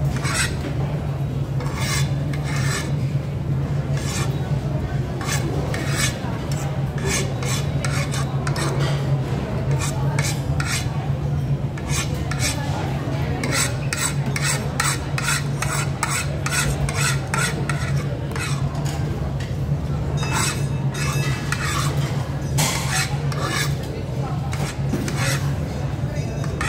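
Cutlery scraping and clinking against a dish in repeated short strokes, several a second in the busiest stretches, over a steady low hum.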